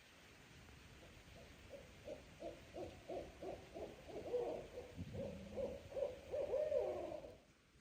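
Owl hooting at night: a long run of hoots that comes faster and louder, then breaks off near the end.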